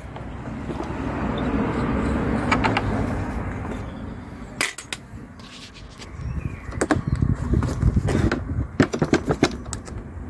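Hand-tool work on a Makita cordless site radio's guard screws with a 5mm Allen key: a rushing scrape for the first few seconds, then a string of sharp clicks and knocks as the key and the metal guard rattle against the casing.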